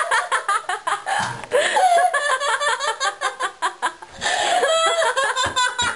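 Teenage girl laughing, with a short break about four seconds in.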